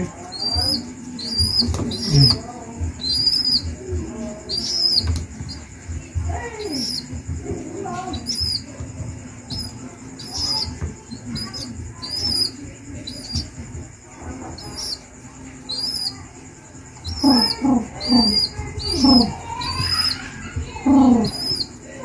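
Baby pigeon (squab) peeping as it is hand-fed, a steady series of short high-pitched begging peeps about two a second. Soft low knocks sound underneath, and louder, lower sounds come between about 17 and 21 seconds.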